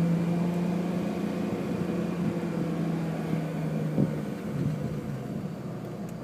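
Supercharged BMW Z4 3.0i's M54 straight-six engine and exhaust heard while driving, a steady drone that fades about four seconds in to a quiet hum as the car settles into a light-throttle cruise.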